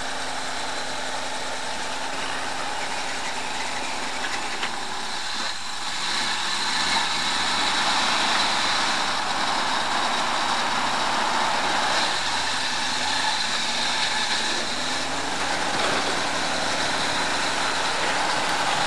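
Off-road 4x4's engine running at low speed as it crawls over rock, its pitch drifting up and down and a little louder from about six seconds in.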